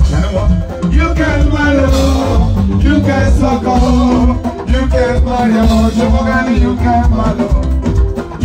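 Live highlife band playing loud through a PA: a man sings into a microphone over drum kit, electric guitar and keyboard.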